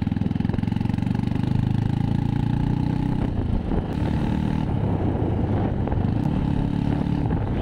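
Motorcycle engine running while riding, steady in pitch, with a brief change around the middle before the steady note returns.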